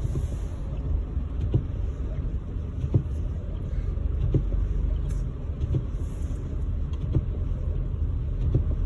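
Steady low cabin rumble of the Mahindra XUV700's engine and tyres as it drives slowly over a snow-covered road, heard from inside the car. Faint short ticks repeat about every 0.7 s on top of it.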